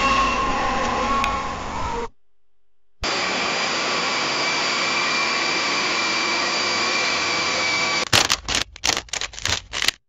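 Jet engine roar: a steady rushing noise with a high whine, from about three seconds in until about eight. Before it, another steady noisy sound cuts off about two seconds in and a brief quiet gap follows. After it comes a rapid, irregular run of sharp clicks and pops.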